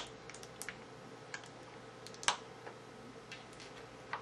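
Scattered light clicks and taps of small plastic parts being handled and set down, one louder click a little past halfway.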